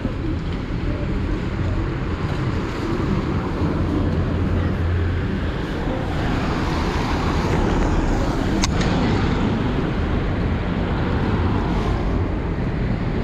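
Road traffic on a wet street: engine rumble and tyre hiss from passing vehicles, the hiss swelling around the middle as a vehicle goes by. A single sharp click comes about two-thirds of the way in.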